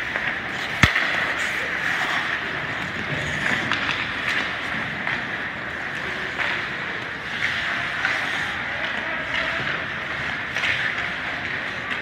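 Ice hockey in play: skates scraping the ice and sticks clacking, with one sharp knock about a second in.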